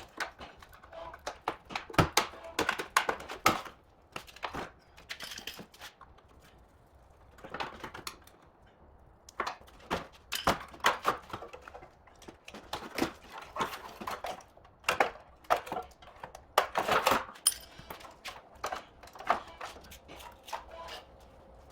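Irregular metallic clicks, clinks and taps of hand tools and fasteners as the front bumper and fittings of a crash-damaged car are unbolted. They come in clusters with short pauses between.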